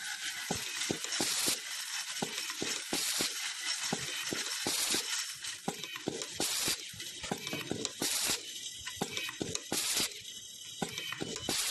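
Blow-fed automatic screwdriver driving screws into wood. Short bursts of compressed-air hiss come about every one and a half to two seconds as each screw is blown through the feed tube to the nozzle, amid rapid clicking and clinking of metal screws and the driver.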